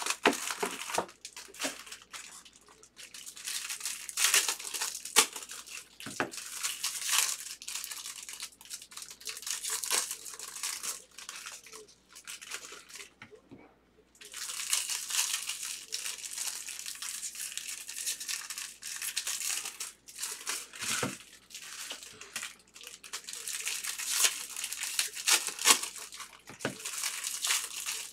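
Foil wrappers of 2023 Bowman baseball card packs crinkling and tearing as the packs are opened and handled, with a short lull about halfway through.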